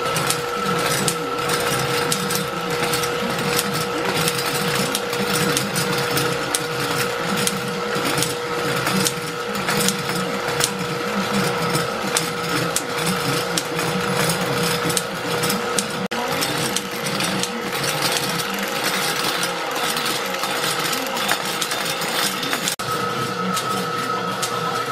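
Homemade envelope-gluing machine running: a fast, continuous mechanical clatter of its rollers, chain drive and linkages, with a steady high whine underneath.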